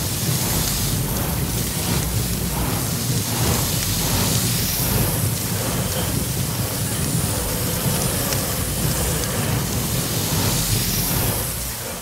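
Steady rushing hiss of a water jet from a fire truck's roof water cannon, a cartoon sound effect, cutting off near the end as the fire is put out.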